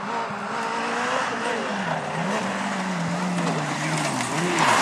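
Rally car's engine revving through a bend on a loose dirt stage, its note wavering, sinking over a couple of seconds, then rising again near the end. Tyres scrabbling on the loose surface grow louder at the very end as the car comes close.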